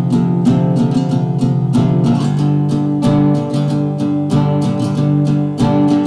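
Background music: guitar-led instrumental with a steady beat, changing chord about two seconds in.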